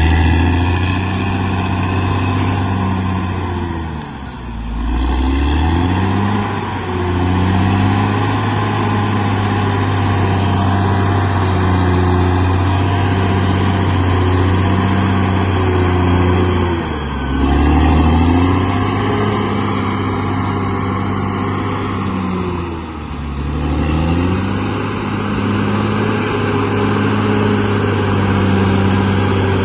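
Bulldozer's diesel engine running steadily, its pitch sagging and recovering as it takes and sheds load: about four seconds in, again around seventeen seconds, and around twenty-three seconds.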